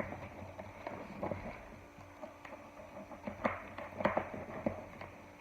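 A lifter box being handled during an unboxing: scattered light knocks and clicks, about one a second.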